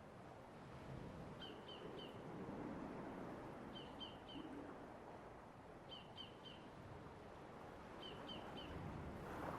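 Light sea waves washing through a rock tunnel, a low steady wash of water that swells near the end. A bird repeats a call of three quick high notes four times, about every two seconds.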